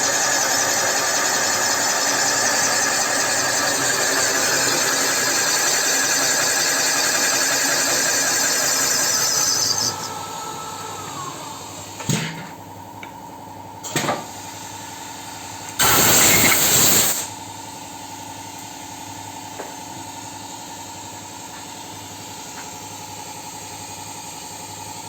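Workshop machine running loudly and steadily, then winding down with a falling whine about ten seconds in. A quieter steady hum follows, with two knocks and a loud burst of hissing lasting about a second and a half.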